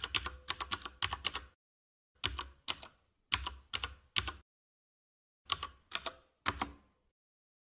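Computer keyboard typing sound effect: rapid keystroke clicks in several short runs broken by brief pauses, matching on-screen text being typed out.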